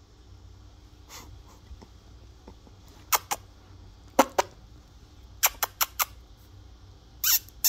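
Teacup Maltipoo puppy giving short, sharp squeaks: a pair, another pair, then a quick run of four. A louder noisy burst comes near the end.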